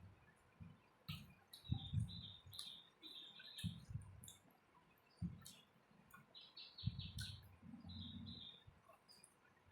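Close-miked eating: chewing and wet mouth sounds of rice and curry in short irregular bursts, with small birds chirping in the background.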